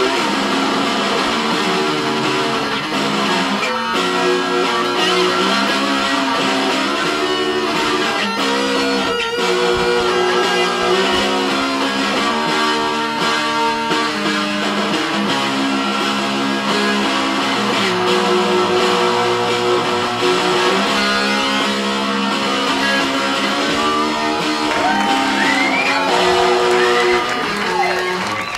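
Two electric guitars playing an instrumental duet, sustained notes and chords moving through changing phrases. Near the end, notes are bent, gliding up and down in pitch.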